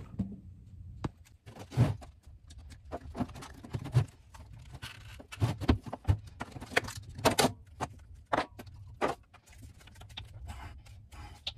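Handling noise of plastic drain plumbing: clear vinyl tubing and a grey plastic tee fitting being picked up, knocked together and worked onto each other, giving a string of irregular clicks and knocks.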